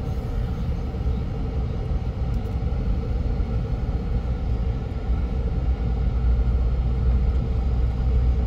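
Low rumble of a vehicle rolling slowly along a gravel road, with engine and tyre noise; it grows louder about halfway through.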